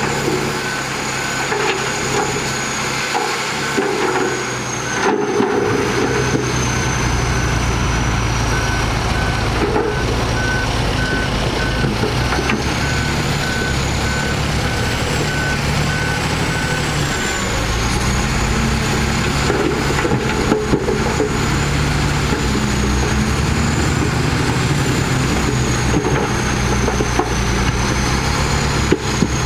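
Heavy diesel construction machinery working, its engine note rising under load and shifting in pitch as it works, while a reversing alarm beeps at a steady rate and stops a little over halfway through.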